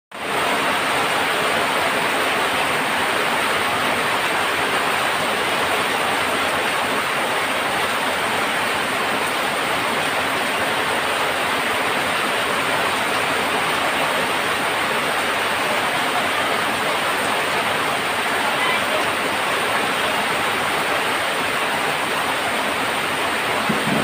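Heavy rain falling on corrugated tin roofs and streaming off the eaves: a steady, dense hiss.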